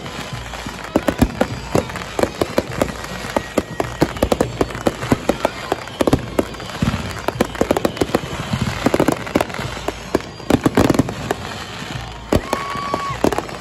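Aerial fireworks going off in rapid succession: many sharp bangs and crackles overlapping without a break. Near the end a short steady whistling tone sounds twice.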